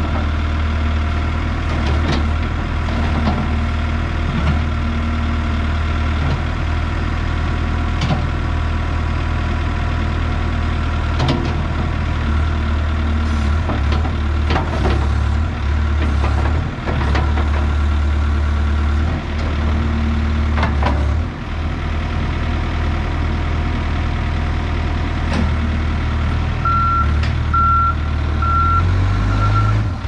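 Case 570T backhoe loader's diesel engine running while the backhoe arm is worked, its note shifting now and then, with occasional clunks. Near the end its reversing alarm starts beeping, a little more than one beep a second.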